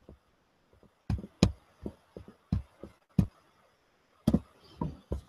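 Irregular sharp clicks and taps from a computer mouse and keyboard in use, about a dozen over a few seconds.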